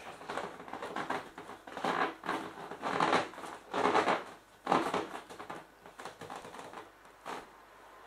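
Vinyl of an inflatable clownfish pool toy rubbing and crinkling as it is handled and squeezed, in a few loud rustling bursts about a second apart through the middle, fading out near the end.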